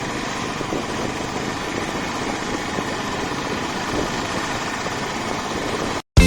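Motorcycle riding at highway speed: steady engine and wind noise picked up by a phone microphone on the rider. The sound cuts off briefly near the end.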